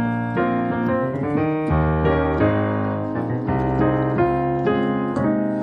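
Piano playing a slow gospel chord progression of rich extended chords, one sustained chord giving way to the next every half second or so; near the end it lands on an A♭ add9 chord over C.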